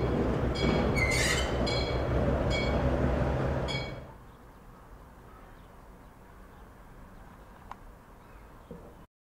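Colas Class 56 diesel locomotive's Ruston-Paxman V16 engine running with a steady low rumble, mixed with short high-pitched squeaks that recur about once a second. About four seconds in the engine sound cuts off, leaving only a faint background.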